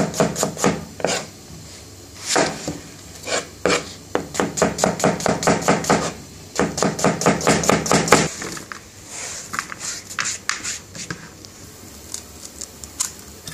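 Chef's knife slicing onions on a plastic cutting board: rapid runs of knocks as the blade strikes the board, with short pauses between runs. The chopping stops about eight seconds in, leaving only faint scattered sounds.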